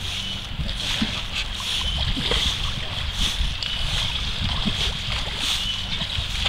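Water splashing and sloshing around an inflatable water-walking ball as the person inside it moves about, over a steady rushing hiss of water.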